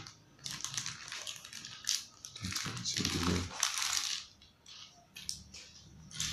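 Small plastic car trim clips clicking and clattering against each other as a hand rummages through a pile of them, with the crinkle of a plastic zip bag, loudest about three seconds in.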